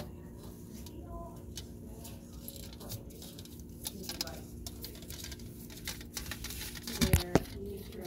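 Metal curtain rod scraping and tapping against the water heater's jacket and the fittings behind it, with a cluster of louder knocks about seven seconds in, over a steady low hum.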